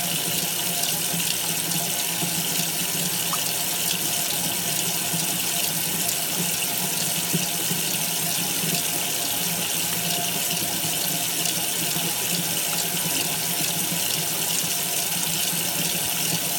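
Tap water running in a steady stream and splashing onto wet fabric that is being rubbed back and forth with a sponge.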